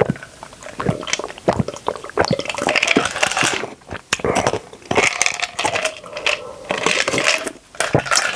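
Close-miked eating: chewing and mouth noises with many quick clicks and crackly stretches.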